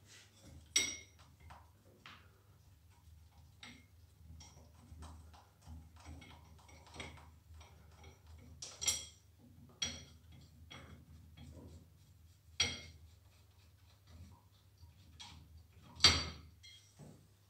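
A 13 mm spanner working the bolts that hold a metal handle bracket to a pressure washer's pump: scattered small metallic clicks and scrapes, with about five sharper ringing clinks of metal on metal.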